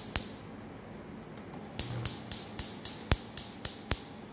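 Gas hob's spark igniter clicking rapidly, about four clicks a second, as a burner is being lit: a single click at the start, a pause, then a run of about nine clicks that stops near the end.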